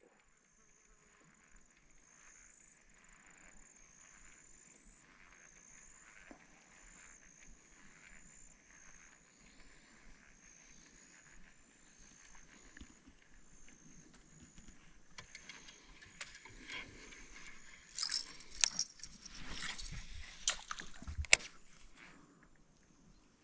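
Insects chirping in quick, high, even pulses. A little past the middle this gives way to a spell of clattering, rustling and sharp clicks, the loudest part, which dies away near the end.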